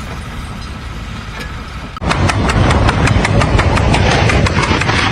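Engine noise. About two seconds in it cuts abruptly to a louder, deep engine sound with a rapid, regular clatter.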